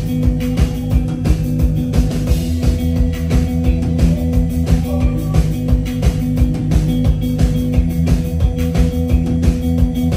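A rock band playing live: guitar and a steady drum-kit beat over held low bass and keyboard tones.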